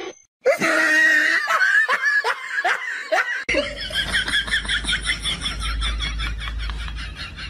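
A person laughing in a run of short bursts that fall in pitch. About three and a half seconds in, the sound cuts abruptly to quick high-pitched pulses, several a second, over a low rumble.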